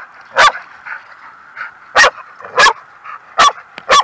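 Dog barking: five sharp, loud barks at uneven intervals, with a few fainter short yips between them.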